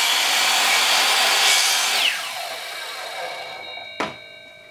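Electric miter saw blade running through a thick roll of seamless paper, then the motor is switched off about two seconds in and winds down with a falling whine. A single sharp click follows about four seconds in.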